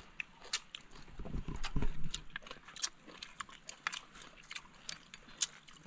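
People eating with their fingers and spoons, with chewing and lip-smacking mouth noises and scattered small clicks. There is a louder stretch about a second and a half in.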